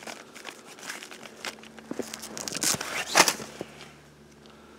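Rustling and crinkling of a nylon tent carry bag and paper tags being handled, in scattered bursts with a louder rustle about three seconds in.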